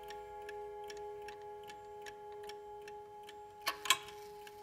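Junghans bim-bam mantel clock's pendulum movement ticking steadily, about two and a half ticks a second, over a faint ringing tone that holds steady. Two louder clicks come near the end.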